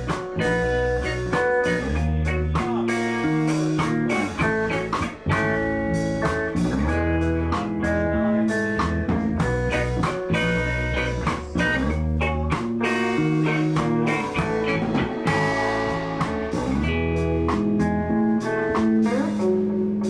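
Ska-punk band rehearsing live: electric bass and electric guitar playing over drums, with no singing.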